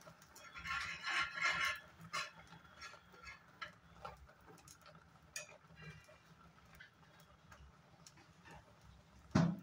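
Metal spoon clinking and scraping against a steel pan while stirring vermicelli in milk: a dense run of clicks in the first two seconds, then scattered ticks. One louder knock comes near the end.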